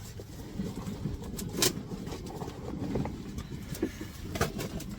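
Scattered light clicks and knocks from close-up handling of small fishing gear, over low rustling handling noise.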